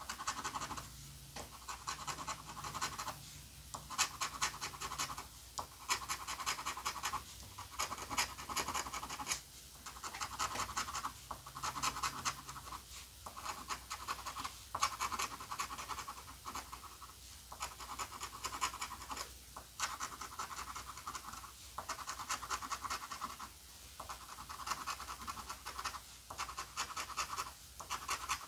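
A coin scratching the latex coating off a scratch-off lottery ticket. It goes in repeated bursts of quick back-and-forth strokes, each a second or two long, with short pauses between.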